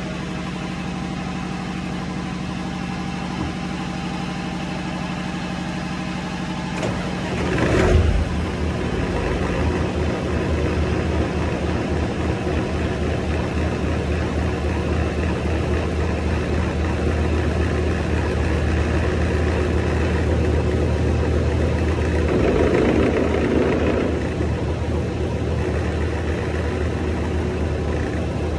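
Engine driving an Advance D300 marine gearbox running steadily on a test run. About seven to eight seconds in the sound swells briefly, then settles into a deeper, louder steady hum, with a smaller rise again a few seconds before the end.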